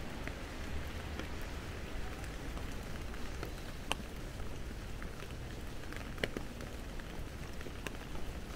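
Steady rain falling on wet pavement, an even hiss over a low rumble, with scattered sharp drips and taps, the clearest about four and six seconds in.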